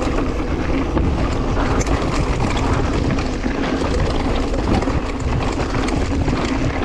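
Mountain bike descending a rocky downhill trail: wind rushing over the GoPro's built-in microphone, with the tyres and bike rattling and knocking over rocks.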